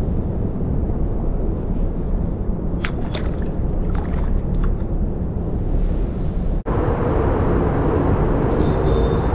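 A steady low rumble, with a few small splashes between about three and four and a half seconds in as a released rock bass drops back into the river.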